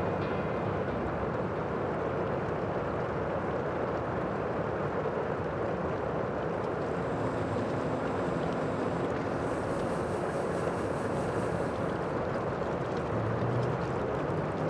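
Steady, even rushing noise with faint low humming tones underneath.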